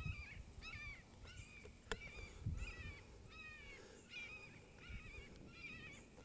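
A red-shouldered hawk calling a steady series of slurred, falling calls, about two a second, over a low wind rumble. A single sharp click comes about two seconds in.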